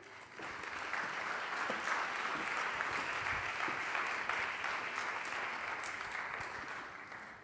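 Audience applauding, swelling about half a second in and dying away near the end.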